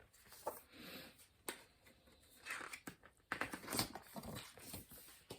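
Rustling and soft clicks of a picture book's paper pages being handled and turned, in a few short scattered bursts.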